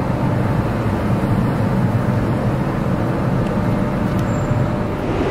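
Steady low vehicle rumble heard from inside a car rolling slowly forward in a queue on a ferry's enclosed car deck.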